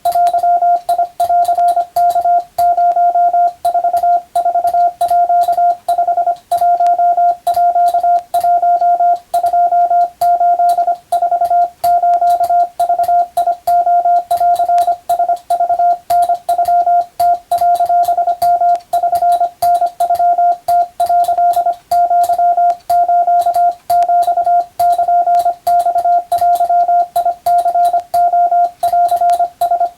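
Morse code (CW) sent continuously as a single steady tone keyed on and off in rapid dots and dashes, with short gaps between characters and a faint click at each keying, as in radiotelegraph operator sending and receiving practice.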